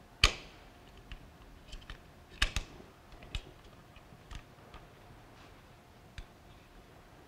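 Scattered small metal clicks and light scrapes as the 10-round internal magazine of a Roth-Theodorovic-Krnka pistol is worked loose from its opened frame by hand, a fiddly removal. The two loudest clicks come just after the start and about two and a half seconds in.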